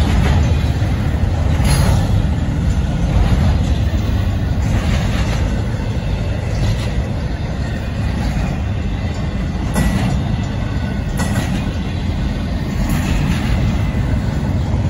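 Union Pacific double-stack intermodal freight train rolling past at a grade crossing. A steady low rumble of wheels on rail, with a clack every second or two as the car trucks pass over the rail joints.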